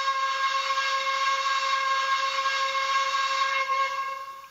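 Steam whistle from the Trix 22220 BR 42 model locomotive's sound decoder: one long, steady whistle blast over a hiss of steam. The hiss drops away near the end, just before the whistle cuts off.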